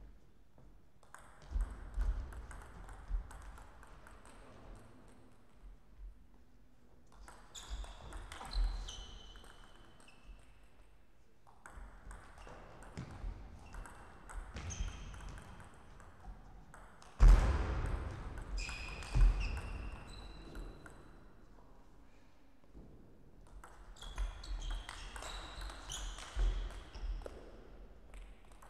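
Table tennis rallies: the ball ticking back and forth off the table and bats in quick runs of clicks, with pauses between points. Short high squeaks come in among the clicks during the rallies.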